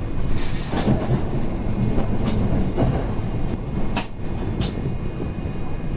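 Subway train running, heard from inside the car: a steady low rumble with a few short, sharp clicks over it.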